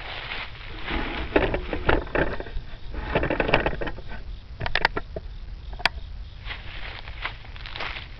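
Footsteps in dry fallen leaves and grass: irregular rustling steps, with a sharp click about six seconds in.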